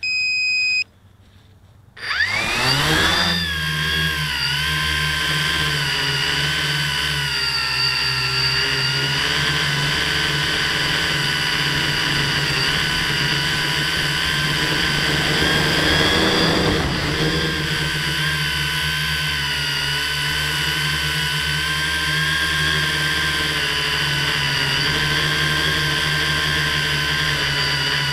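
FPV quadcopter: a short electronic beep, then about two seconds in the brushless motors and propellers spin up with a rising whine and run on as a loud, steady buzzing whine that shifts in pitch with the throttle. Heard from the camera mounted on the drone itself.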